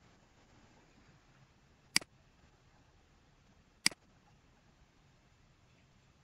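A computer mouse button clicked twice, about two seconds apart, with faint room hiss between the clicks.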